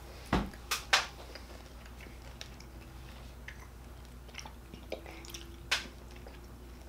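Chewing Skittles candy: scattered soft mouth clicks and smacks, with a few sharper ones in the first second and another near the end.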